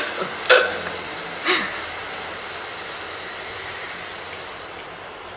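Three sharp crunching sounds in the first second and a half as a crisp, cheese-filled sandwich biscuit is bitten, then a steady background hiss.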